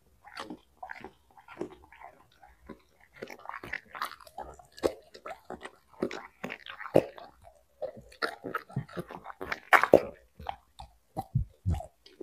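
Wet chewing and crunching of cooked broccoli, in irregular bites with no steady rhythm; the loudest crunch comes about ten seconds in, and a couple of dull low thumps follow near the end.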